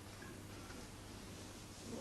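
Quiet room tone with a steady low hum and a couple of very faint small clicks.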